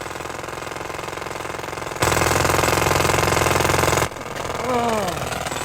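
A machine running with a rapid, steady mechanical rattle. About two seconds in it gets much louder, then cuts off suddenly two seconds later. A few short falling squeaky calls follow near the end.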